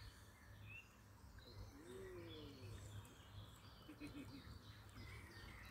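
Near silence: faint birds chirping over a low rumble.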